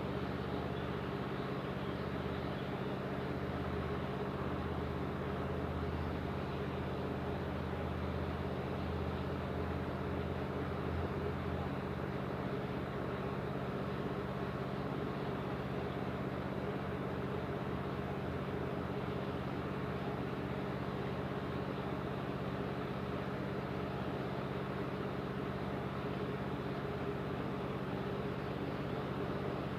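Steady low mechanical hum with an even wash of noise above it.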